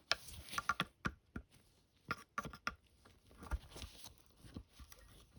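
Irregular light clicks and ticks of a screwdriver and hard plastic parts being handled while a screw is worked out of a 1997 Oreck XL9100 upright vacuum.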